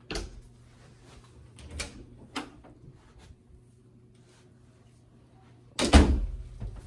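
Interior doors being handled in a small room. There is a sharp knock at the start, two lighter knocks about two seconds in, and the loudest knock about six seconds in. A steady low hum runs underneath.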